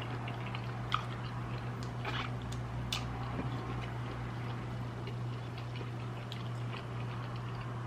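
Close-miked chewing and mouth clicks of someone eating shrimp and rice, a scatter of short sharp clicks over a steady low hum.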